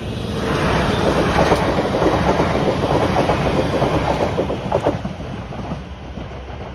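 South Western Railway electric multiple unit passing at speed, its wheels running over bolted fishplated rail joints in a rapid, loud clickety-clack. The noise builds, holds for about four seconds and fades as the train goes by.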